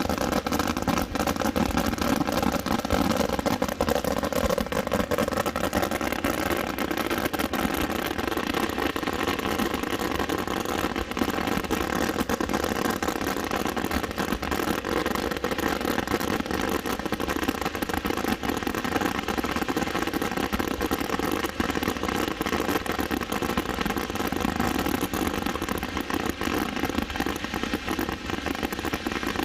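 A dense, continuous fireworks barrage: bangs and crackling that run together without a break.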